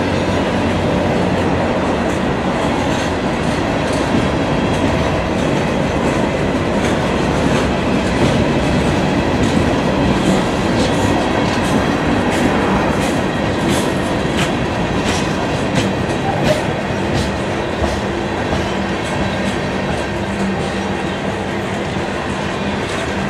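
Freight train cars rolling past: covered hoppers, a tank car and high-sided trash gondolas, their steel wheels clacking on the rails in a steady rumble with scattered sharp clicks.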